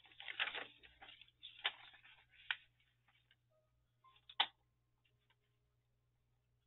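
Paper being slid and handled on a Fiskars sliding paper trimmer: rustling in the first second and again shortly after, then a few sharp clicks, the loudest about four and a half seconds in.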